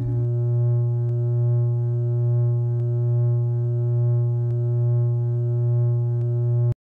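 Background music: one low synthesizer chord held steady, with faint ticks a little under two seconds apart. It cuts off suddenly near the end.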